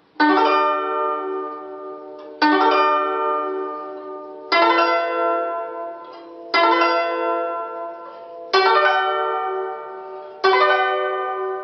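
Guzheng (Chinese zither) playing a quick four-note arpeggio, do–mi–sol–do, rolled within one beat, six times about two seconds apart, each left to ring out.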